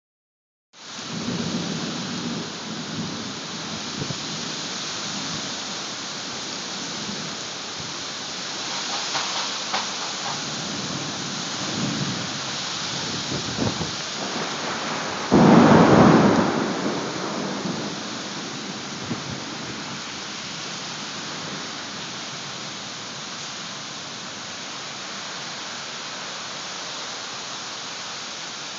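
Heavy rain pouring steadily in a thunderstorm, with a loud clap of thunder about halfway through that dies away over a couple of seconds.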